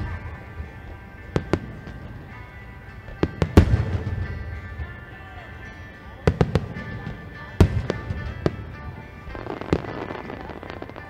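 Aerial firework shells bursting in a series of sharp booms, the loudest about three and a half seconds in and more coming quickly around six to eight seconds, with music playing steadily underneath.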